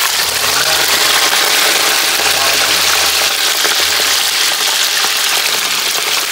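Pieces of boiled pork trotter frying in hot oil in a wok: a loud, steady sizzle just after they go into the pan, with chopsticks stirring them near the end.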